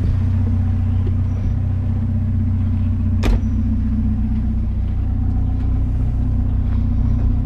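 Vehicle engine running steadily in a low drone, with a single sharp click about three seconds in.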